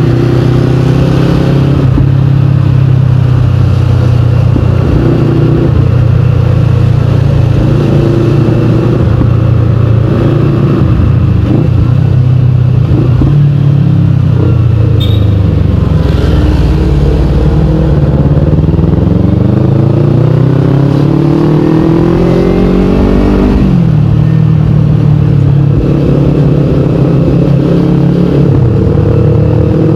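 Kawasaki Ninja 250 FI parallel-twin engine running through a KP16 aftermarket exhaust, loud throughout. The note steps up and down with the revs, then climbs steadily for several seconds about two-thirds of the way through before dropping sharply, as at a gear change.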